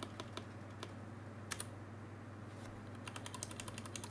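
Computer keyboard typing: a few scattered keystrokes, then a quick run of keystrokes from about three seconds in, over a low steady hum.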